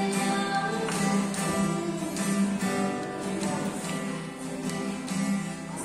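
Acoustic guitar strummed in a steady rhythm, with a girl's voice singing along in the first few seconds.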